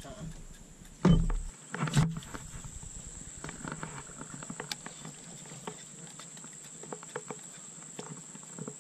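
A baitcasting reel being cranked to retrieve a lure, giving soft, irregular ticking, after two knocks about a second apart near the start. A steady high whine runs underneath.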